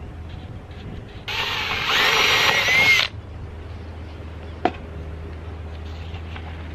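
Cordless drill runs for nearly two seconds, its motor whine rising as it speeds up, then stops. A single sharp click follows a couple of seconds later.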